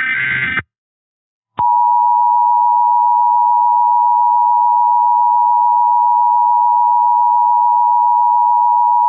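The end of a short burst of Emergency Alert System SAME digital header tones. About a second and a half in, the EAS two-tone attention signal starts: a loud, steady dual tone just under 1 kHz (853 and 960 Hz) that holds without change.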